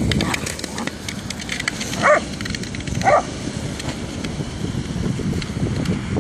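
A whippet gives two short barks about a second apart while playing with a ball, with paws scuffling and crunching on snow throughout.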